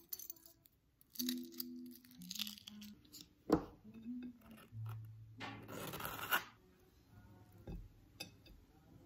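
Scraping and tapping of utensils and toast at breakfast, with a sharp knock about three and a half seconds in and a longer scrape about a second later, under faint acoustic guitar music.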